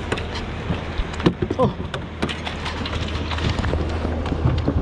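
Irregular knocks and clatter as a white plastic cooler lid is lifted and handled in an aluminium jon boat, over a steady low hum.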